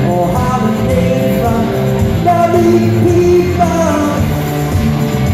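Rock band playing live: electric guitars and drums, with a voice singing a melody over them.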